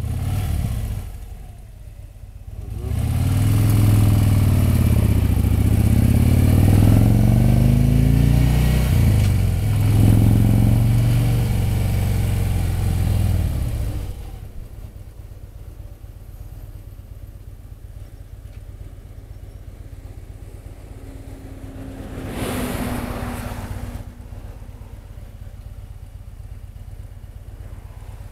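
Harley-Davidson touring motorcycle's V-twin engine heard from the saddle, pulling hard with its pitch rising and falling several times, then settling to a quieter, steady low running sound after about 14 seconds. A short rush of noise comes about 22 seconds in.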